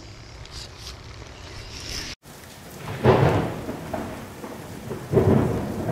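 Steady rain hiss with two short, loud rumbles, about three seconds in and again near the end.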